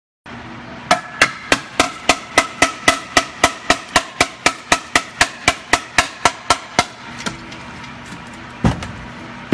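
A catalytic converter's metal shell being knocked repeatedly, about four sharp ringing strikes a second for some six seconds, then a single knock near the end. Broken catalyst substrate rattles loose from it: debris caught from a failed upstream bank 1 converter.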